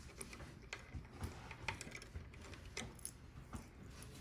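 Faint, scattered small clicks and taps of plastic drive trays and drive-bay parts being handled in a Synology NAS.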